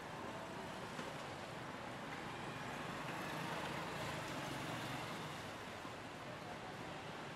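City street ambience: a steady wash of traffic noise that swells slightly in the middle.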